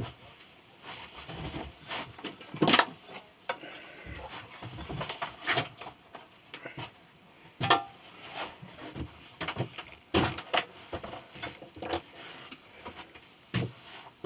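Irregular knocks and light metallic clinks of hand tools and a small brass piece being handled and set down on a workbench, with no steady grinding or sanding noise.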